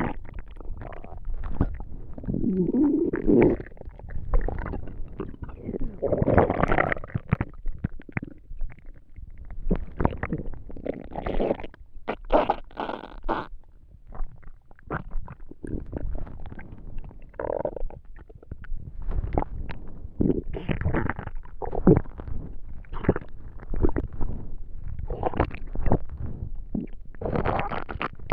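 Human stomach and intestines gurgling during digestion: an irregular run of short pops and clicks with bubbling gurgles in between, and a few longer wavering gurgles that rise and fall in pitch, the first about two seconds in.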